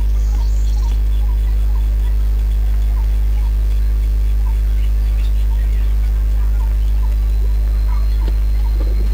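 Loud, steady low electrical mains hum, with faint scattered short chirps and scrapes above it. A thin high whine comes in over the last two seconds.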